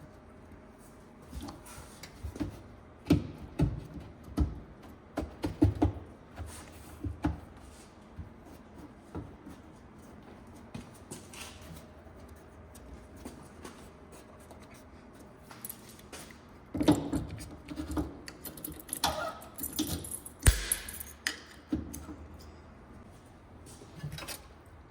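Hand tools and metal parts being handled during car repair work: scattered clinks and knocks, busiest in the first few seconds and again near the end, with a short scraping sound in the later stretch.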